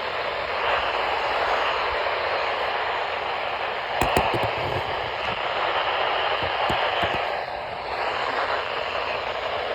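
Weather radio receiver hissing with static and no voice on the channel, the narrow, tinny hiss of a speaker. A few sharp crackles or clicks come about four seconds in, with single ones near five, six and a half and seven seconds.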